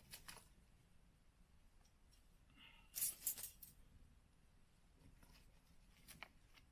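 Light metallic clinks of camp cookware being handled, in three short clusters, the loudest about three seconds in; otherwise near silence.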